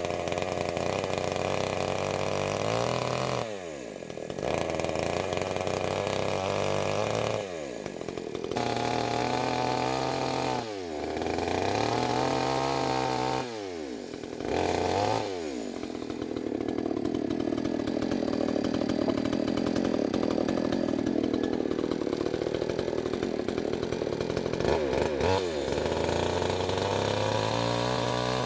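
Chainsaw cutting wood: the engine drops to idle and revs back up several times, with one long cut at steady high revs about halfway through.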